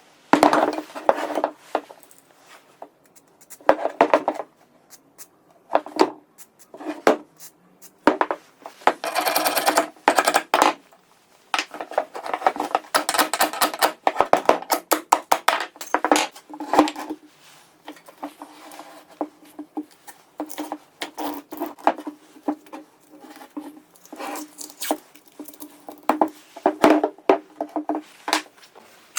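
Irregular clinks and knocks of metal parts and tools being handled at a workbench, with a few longer, denser stretches of clatter.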